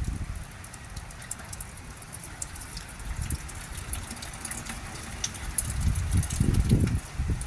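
Rain falling steadily, with scattered drops ticking sharply over a constant hiss. A low rumble swells near the end, like wind buffeting the microphone.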